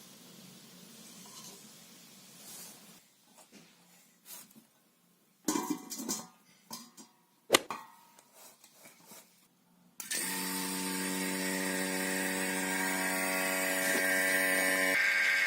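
A few clicks and knocks of handling, then about ten seconds in a small electric motor starts and runs steadily with an even hum.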